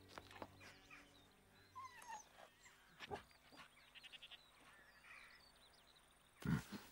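Quiet farmyard ambience: faint bird chirps and a few soft clicks and rustles, with a short animal call near the end.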